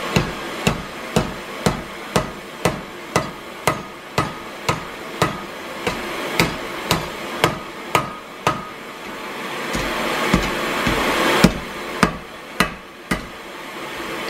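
Hand hammer striking red-hot metal on an anvil in a steady run of blows, about two a second. After a pause it strikes four more times, the first blow the loudest. A steady rushing noise swells during the pause and again near the end.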